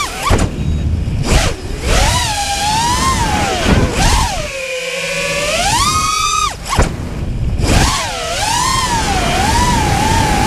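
Armattan Titan 2306 2450 kV brushless motors with 5-inch props on an FPV racing quadcopter, heard from on board: a high whine that rises and falls in pitch with throttle, twice falling almost silent for under a second, over wind rushing past the airframe.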